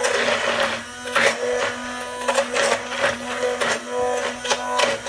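Immersion hand blender running in a plastic jug, its motor humming steadily while it emulsifies milk, sunflower oil and garlic into an eggless allioli, the mixture thickening as it binds. Frequent short clicks and splashy surges come as the blender head is worked up and down in the thickening sauce.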